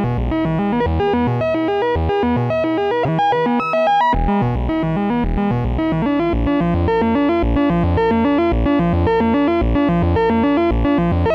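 Make Noise XPO oscillator playing a fast sequenced synth melody whose whole pitch shifts in steps as transpositions are selected by hand. The register changes about four seconds in.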